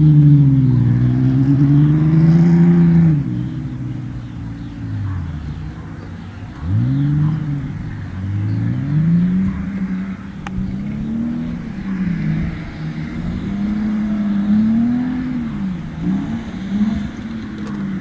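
Car engine revving up and down over and over, its pitch rising and falling every second or two, loudest in the first three seconds, as a car is driven hard in drifts.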